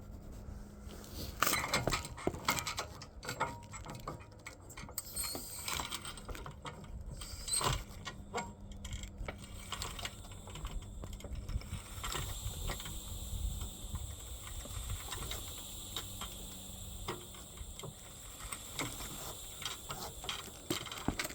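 Car jack being worked to lower the car onto the tire, with irregular metallic clicks and clanks, over a faint steady hum.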